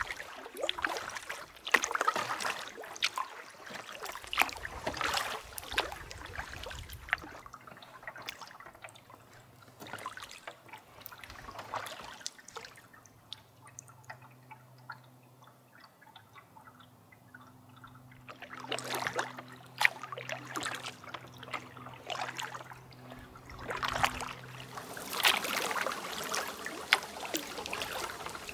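Canoe paddling: water splashing and lapping against the canoe's hull, with paddle strokes and drips, busier at the start and again from about two-thirds in, quieter in the middle. A faint steady low hum runs under the quieter middle stretch.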